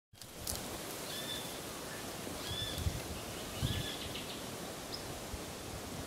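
Golden-shouldered parrot giving three short whistled calls, each rising then falling, a little over a second apart, over a steady outdoor hiss. Two low bumps on the microphone come near the middle.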